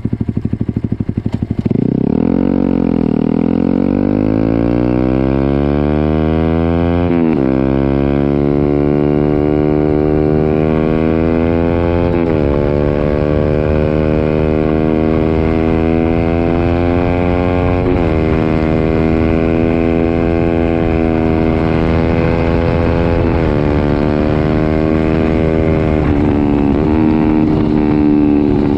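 Honda CB125R's 125 cc single-cylinder four-stroke engine, through a full IXRACE M9 exhaust with the baffles removed. It runs briefly at low revs, then pulls away and accelerates up through the gears. The pitch climbs in long rises and drops at each shift, about seven, twelve and eighteen seconds in, then holds higher with a couple more shifts near the end.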